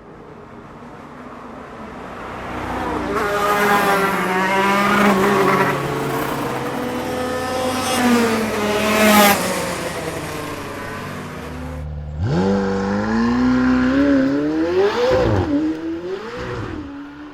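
Race car engine accelerating hard, its pitch climbing and swelling in loudness as it passes. About twelve seconds in the sound cuts to another racing engine that revs up steeply from low and blips up and down.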